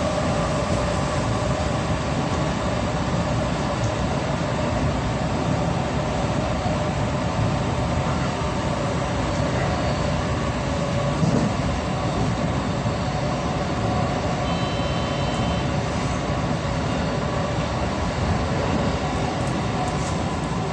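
JR West 223 series electric train running at speed, heard from inside the front car: a steady rumble of wheels on rail with a steady hum running through it. A brief faint high tone sounds about fifteen seconds in.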